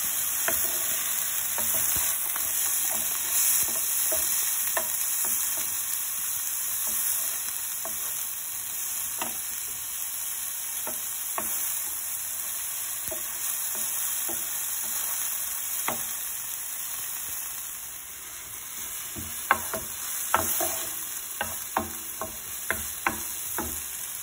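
Chopped red onions sizzling in hot oil in a nonstick frying pan, with the scrapes and taps of a slotted wooden spatula stirring them. The stirring strokes come more often in the last few seconds.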